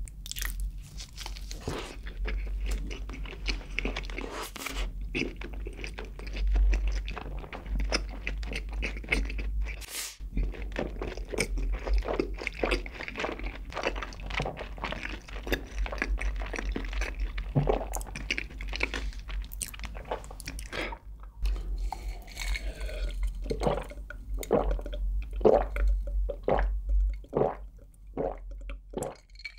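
Close-miked chewing and crunching with wet, sticky mouth sounds as a cheese-sauce-coated bite of food is eaten. Near the end there are gulps of a drink swallowed from a glass jar.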